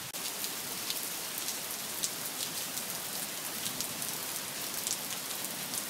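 Steady rainfall, an even hiss with many small drop ticks scattered through it.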